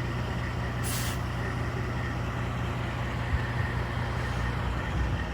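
Truck engine running steadily with a low drone and a faint steady whine, and a short sharp hiss about a second in.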